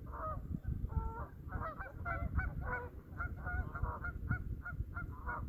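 Several geese honking in short, repeated calls that come quicker, a few a second, from about a second and a half in, over a low rumble.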